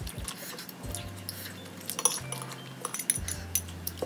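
Eating utensils clinking and tapping against dishware in short, scattered clicks, over soft background music.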